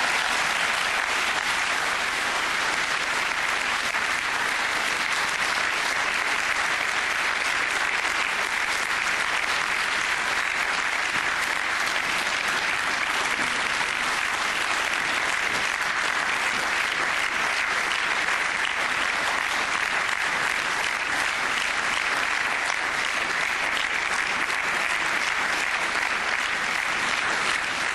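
Audience applauding steadily, a long even ovation that cuts off suddenly at the end.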